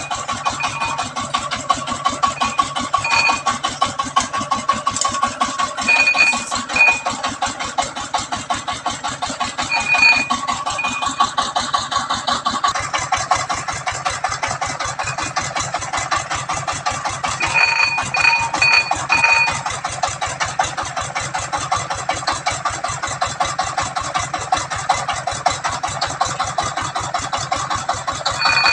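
Single-cylinder diesel engine of a công nông tractor running steadily with a rapid, even chug. Short high-pitched chirps come at intervals, four in quick succession a little past halfway.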